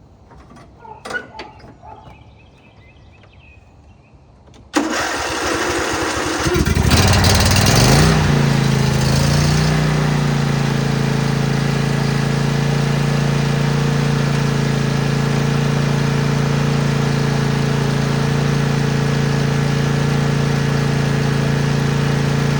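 Lawnmower engine starting: a few faint knocks, then it suddenly catches about five seconds in, revs up over the next few seconds and settles into a steady run at constant speed.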